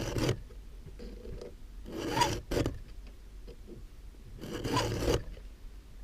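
Round chainsaw file rasping across a saw chain's cutter tooth in slow, even strokes about two and a half seconds apart, three in all.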